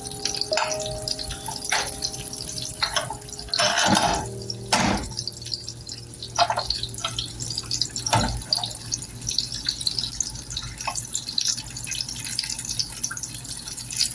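Kitchen sounds: a constant fine crackling, spattering hiss with scattered knocks and clinks of utensils, the loudest a little past the middle.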